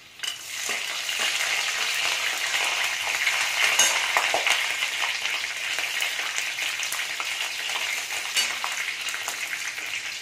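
Chopped green chillies dropped into hot refined oil in a steel kadai, with peanuts already frying. The oil breaks into a loud sizzle a moment in and keeps sizzling with scattered crackles.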